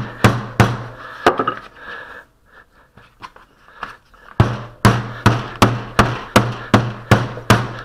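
Wooden mallet beating a lump of old glazing putty on a workbench board, dull knocks at about three blows a second; the old putty, gone short and cracking, is being worked and remixed. The blows stop for about three seconds in the middle while the putty is folded over by hand, then start again.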